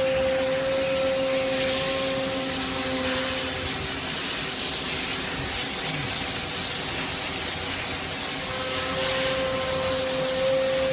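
Nakamura-Tome CNC lathe with its spindle running at about 700 rpm: a steady mechanical hum and hiss with a steady whine that fades out about a third of the way in and comes back near the end.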